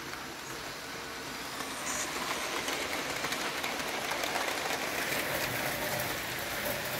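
Rivarossi model Mallet 0-4-4-0 locomotive running on its track at full speed, its motor (fresh brushes, cleaned) and wheels making a steady whirring rumble that grows louder about a second and a half in and then holds.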